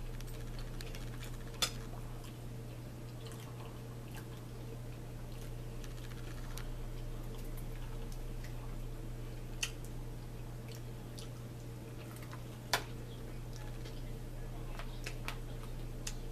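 Quiet eating at a table: a few short, sharp clinks of cutlery and dishes against plates, the loudest about three-quarters of the way through, over a steady low electrical hum.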